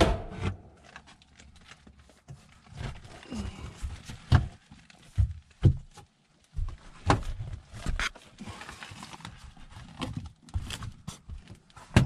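Irregular knocks, thumps and scrapes, about a dozen spread unevenly, from a person moving about and handling things around a furnace in a cramped attic.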